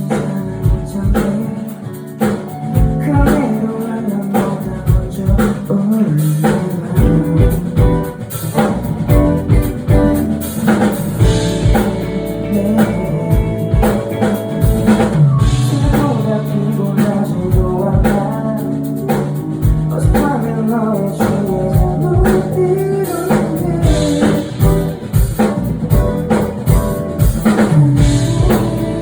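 A live rock band playing a song: a drum kit keeps a steady beat under guitar and bass.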